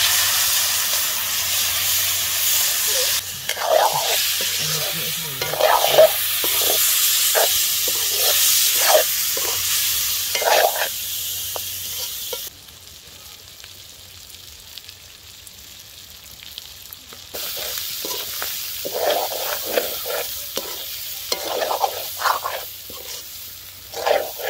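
Fish curry sizzling in a steel wok as liquid is poured in, with a metal spatula scraping and stirring against the pan in short strokes. The sizzle drops away for about five seconds around the middle, then comes back.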